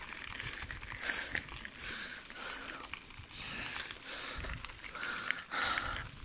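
A cyclist breathing hard while pedalling, breaths coming in soft rushes about once a second, over the low rumble of tyres rolling on a gravel track.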